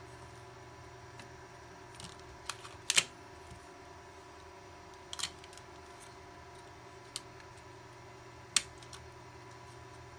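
Small plastic and electronic parts handled on a silicone work mat: a TFT LCD panel and its flex ribbon cables and connector board being picked up, turned over and fitted. This gives about six scattered clicks and taps, the loudest a double click about three seconds in. A faint steady electrical hum lies underneath.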